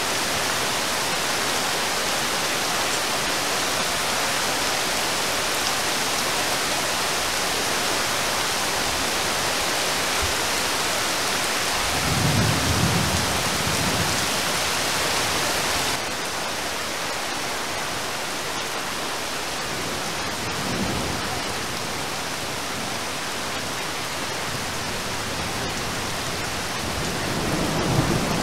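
Heavy rain falling steadily on a river and trees, a dense even hiss, with low rumbles of distant thunder a little before halfway and again near the end. The hiss drops suddenly to a softer level about halfway through.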